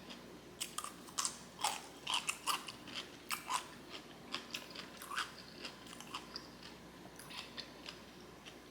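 A person chewing with wet mouth smacks and clicks, thick and rapid for the first five seconds or so, then sparser.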